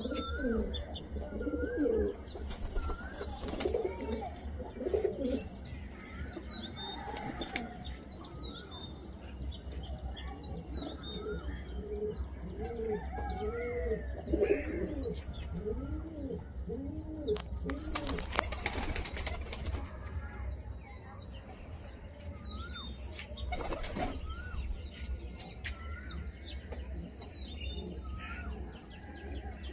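Teddy pigeons cooing again and again in a wire aviary, broken by a few short flurries of wing flapping, the longest just past the middle. Thin high chirps sound throughout.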